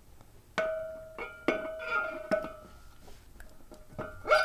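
Polished metal propeller clinking against the prop shaft as it is slid on: a run of sharp metallic knocks, each leaving a short ringing tone, with a cluster near the end.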